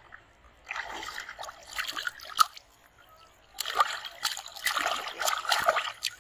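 Water splashing in two bursts: one about a second in, and a longer, louder one from about three and a half seconds in, as a large fish thrashes at the surface of shallow river water.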